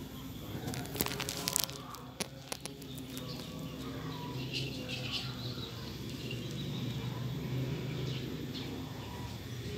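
Vinyl insulating tape being pulled off the roll and wound around an audio cable by hand: a few sharp crackling peels in the first couple of seconds, then quieter handling. Some short high chirps come around the middle, over a steady low hum.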